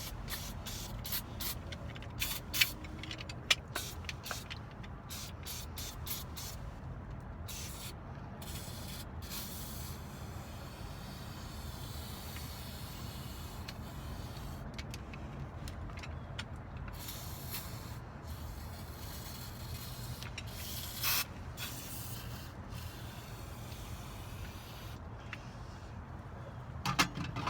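Several sharp clicks at the start, then an aerosol can spraying lubricant into a mortise lock's mechanism. There is one long hiss, then a few shorter bursts.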